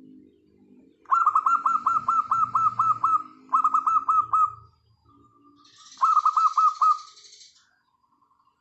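Zebra doves (perkutut) calling: rapid staccato series of short cooing notes, about seven a second, in three bursts, with softer, lower coos between them.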